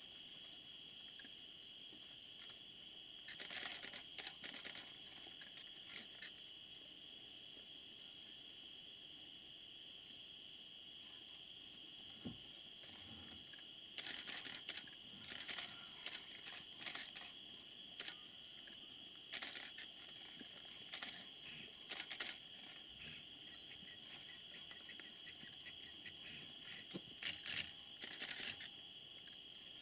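Night insects calling in a steady, high-pitched chorus at two constant pitches, with scattered short crackles and clicks a few times.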